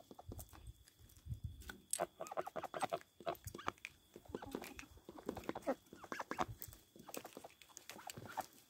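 Domestic chickens clucking softly in a series of short, separate calls, with scattered light clicks, and a faint steady high tone that stops about seven seconds in.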